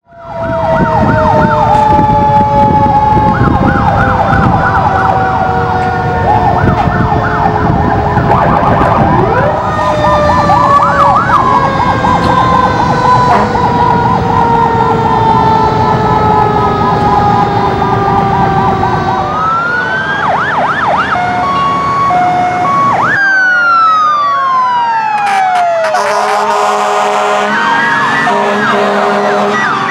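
Many antique fire engine sirens sounding at once: fast warbling electronic sirens over mechanical sirens winding slowly down in pitch, with engines rumbling underneath. About 23 seconds in the rumble cuts away and sirens keep rising and falling.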